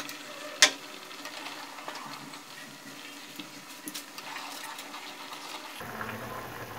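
Soup boiling steadily in an aluminium pot on a gas stove. A sharp click comes about half a second in, and a few lighter clicks come around four seconds, as chopsticks stir the pot.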